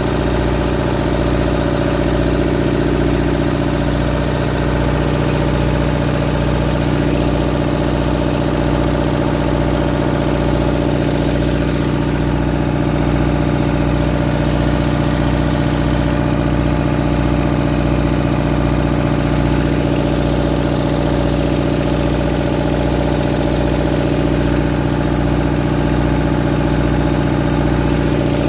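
1965 Owens generator's engine running steadily on a mix of compressed hydrogen and oxyhydrogen (HHO) gas, holding one even speed.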